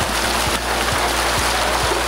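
Heavy splashing of many farmed yellowtail thrashing in a drawn-up net pen, a dense hiss like rain on water. Over it runs background music with a steady beat of about two thumps a second.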